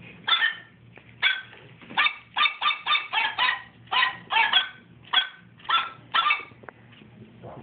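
A person voicing a plush dog hand puppet with a quick, irregular series of short, high-pitched yips, about two a second.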